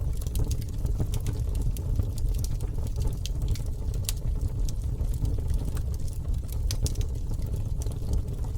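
Campfire burning and crackling: frequent small, sharp pops and snaps at irregular intervals over a steady low rumble.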